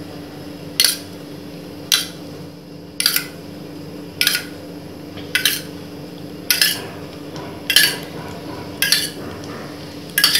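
A stainless steel spoon clinking against a steel bowl about once a second, nine times, as oil is scooped out and spooned into each cavity of a paniyaram pan. A steady low hum runs underneath.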